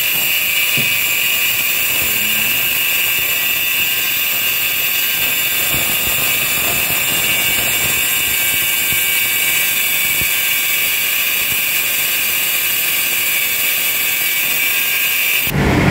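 Electric angle grinder with a cutting disc cutting into the steel body of a Honda Civic rear shock absorber, a steady high-pitched whine of disc on metal that stops abruptly near the end. The leaking shock is being cut open so it can be rebuilt with new seals.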